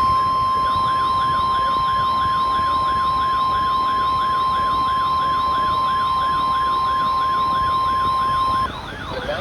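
NOAA Weather Radio 1050 Hz warning alarm tone: one steady, high-pitched tone held for about nine seconds that cuts off shortly before the end. It signals that a warning broadcast follows. Underneath runs a fast warbling tone that rises and falls about three times a second.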